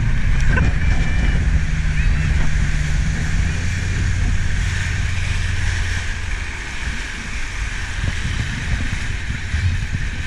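Motorboat engine running steadily under way while towing a skier, a low even hum under the rush of its churning wake and wind on the microphone.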